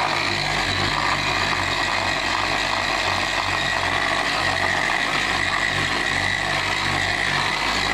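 Porter-Cable electric polisher running steadily with a foam pad pressed on painted bodywork, a steady motor whine over a low hum, cutting compound to level out sanding scratches.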